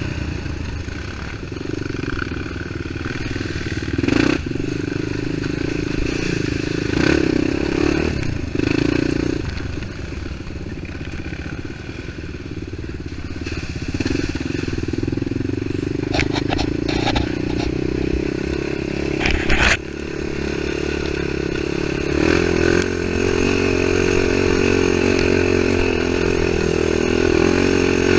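ATV engine running under throttle, its note rising and falling as the rider works the throttle, with knocks and clatter from the machine jolting over the rough trail; the sharpest knock comes a little before the twenty-second mark.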